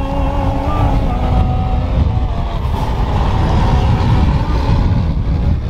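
Wind buffeting the microphone, a steady heavy rumble. In the first two seconds a man's chanted voice wavers faintly through it.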